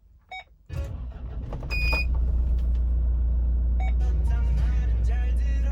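Hyundai Terracan's engine cranked by the starter, catching about a second in and settling straight into a steady idle, with a short electronic beep from the dash as it fires.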